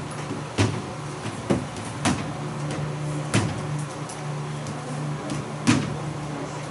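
Chalk tapping and knocking against a chalkboard as lines and tick marks are drawn: a handful of sharp, irregular taps over a steady low hum.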